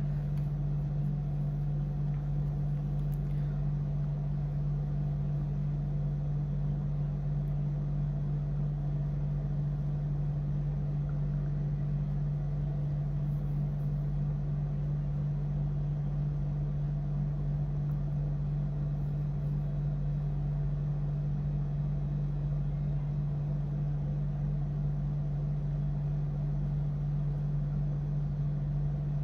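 A steady low hum with a deeper rumble beneath it, unchanging in pitch and level.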